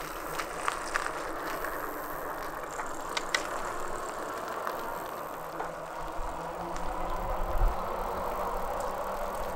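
Bicycles rolling along a paved street: steady tyre noise with a few light clicks and rattles, and wind rumbling on the microphone from about six seconds in.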